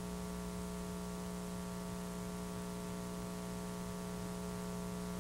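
Steady electrical mains hum, several pitches stacked together, over a faint hiss.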